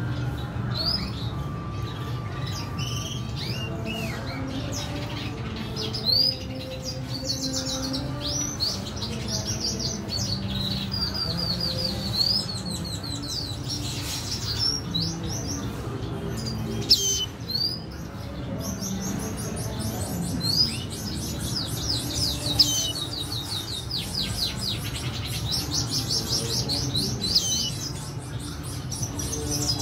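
Red siskins twittering in many short, fast runs of high chirps and trills, with a few sharp taps.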